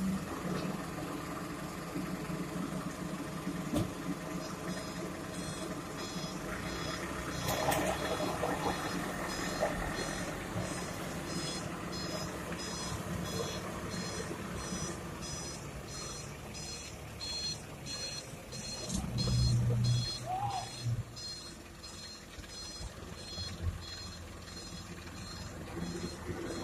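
A heavy-vehicle reversing alarm beeping about twice a second over a running diesel engine at the quarry, the beeping starting a few seconds in. A louder low drone swells for about two seconds around two-thirds of the way through.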